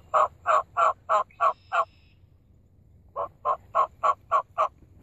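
Turkey yelps: a run of about seven evenly spaced notes, a pause, then a second run of six.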